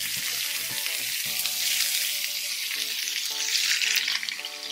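Salmon fillets sizzling in hot oil on a ridged grill pan as they are laid down one after another. The sizzle starts suddenly and grows louder near the end as more fillets go on.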